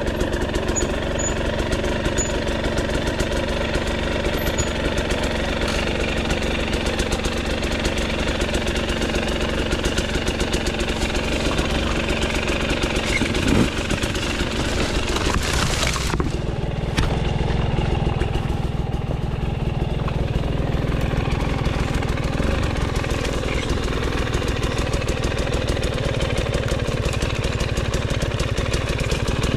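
Dirt bike engine idling steadily at an even pitch.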